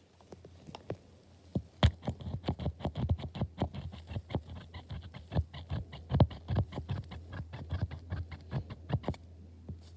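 Rapid, irregular tapping of a paint marker's tip on paper, dabbing dots. The taps start about a second and a half in and stop about a second before the end, over a faint low hum.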